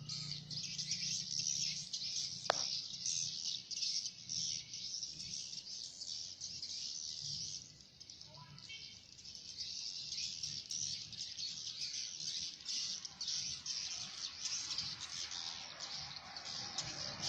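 Dense, continuous twittering of a crowd of edible-nest swiftlets, rapid high chirps overlapping without pause, over a steady low hum.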